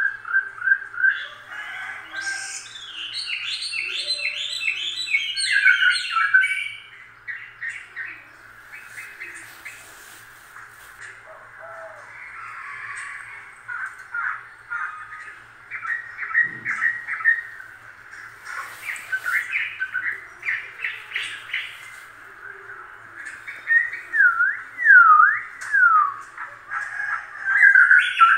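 Busy high chirping and squeaking calls in fast runs of short repeated notes, with a few quick falling sweeps near the end.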